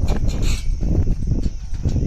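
Footsteps of someone walking with the camera, with irregular knocks over a constant low rumble and a steady high hiss.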